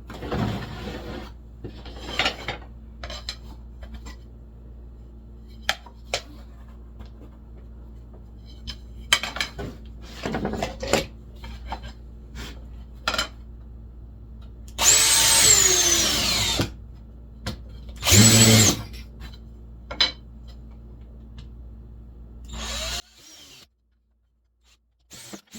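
Power drill run in two bursts, about a second and a half and then half a second, its motor whine falling as the trigger is let off; pre-drilling into the wood of a hive cover. Scattered handling knocks and clicks come between, over a steady low hum that cuts off near the end.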